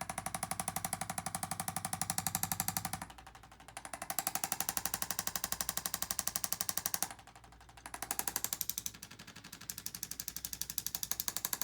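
Handheld electric percussion instrument rapidly tapping, about ten taps a second, in three runs of about three seconds each with roughly one-second pauses between them.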